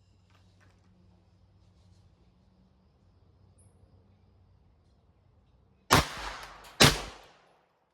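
Two shots from a .22 LR semi-automatic pistol, close together, less than a second apart, each with a short ring-out after it.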